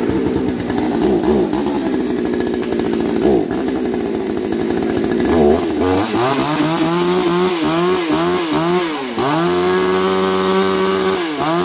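Small petrol engine of a tool running loud at high speed, then revved up and down in quick blips about twice a second, held at a steady high speed, and let fall away near the end.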